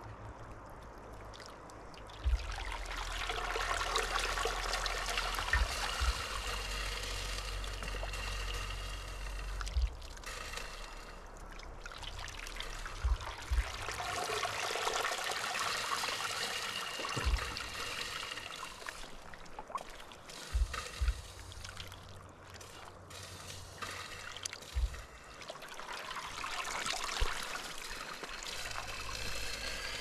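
Scald water sloshing, pouring and dribbling off a chicken carcass as it is dunked and lifted repeatedly in a pot of hot water to loosen the feathers before plucking, in three long bouts of splashing, with a few short knocks.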